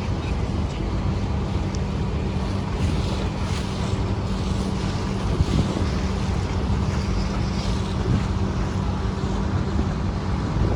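Ferry's engine running with a steady low drone, water rushing past the hull and wind buffeting the microphone.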